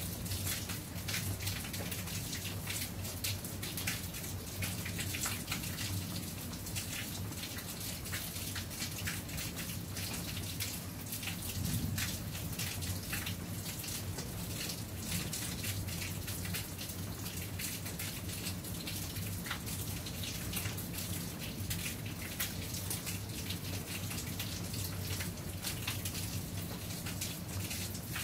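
Rain falling steadily, with many separate drops heard close by as irregular ticks, over a low steady hum.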